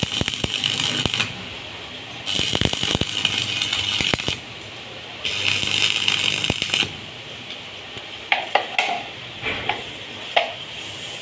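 Three hissing bursts of a second and a half to two seconds each, with sharp clicks among them, then several light metallic clinks near the end, like small metal parts being handled or set down.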